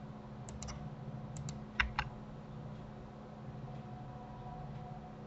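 Several short clicks of a computer mouse and keyboard during the first two seconds, the last two the loudest, over a steady low hum.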